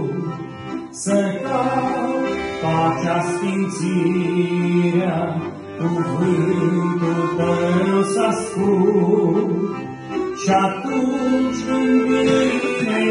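A man singing a hymn in Romanian with piano accordion accompaniment.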